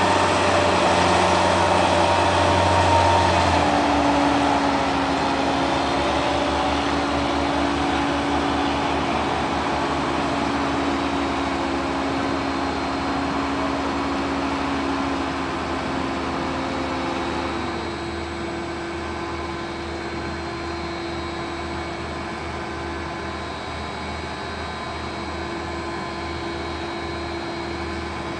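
Fendt tractor's diesel engine running steadily as it pulls a loaded silage trailer away, growing fainter. Its tone shifts about 4 s in and again around 18 s.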